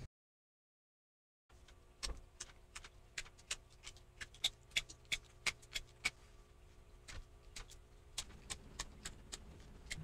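Utility knife carving a piece of maple, a run of sharp, irregular clicks as shavings are cut off, about two or three a second, starting after a second and a half of dead silence.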